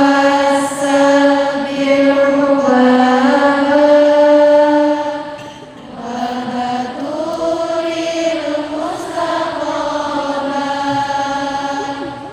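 A woman's voice chanting in long, held melodic notes, drawn out over several seconds each, with a short breath break about six seconds in.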